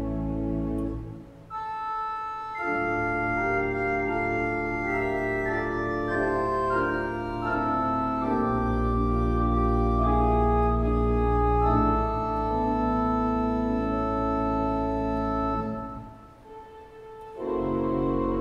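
Church organ played from a three-manual console: slow, sustained chords over deep pedal bass notes, with brief breaks between phrases about a second in and again near the end.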